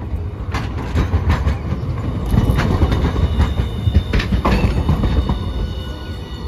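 Hiroshima Electric Railway 1000-series Green Mover LEX low-floor tram passing close by, with a steady low rumble from its wheels on the rails and a run of irregular sharp clacks as they cross the track joints.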